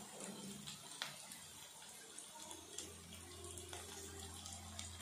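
Faint, steady sizzle of chopped onion and green chillies frying in oil in a kadhai, with a couple of soft clicks from scissors snipping green chillies into the pan.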